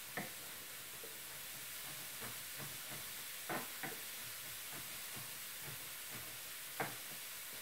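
Kitchen knife mincing garlic on a plastic cutting board: a handful of scattered, sharp taps of the blade against the board over a steady faint hiss.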